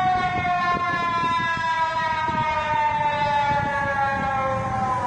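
National public warning siren from an emergency alert recording: one long, loud tone with strong overtones that slides slowly down in pitch, over a low rumbling hiss.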